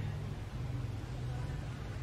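Steady low background rumble with a faint even hiss, with no calls or distinct sounds standing out.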